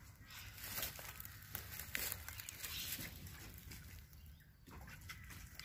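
Faint rustling with scattered small clicks, from footsteps and from handling the crumbling brood comb close to the microphone.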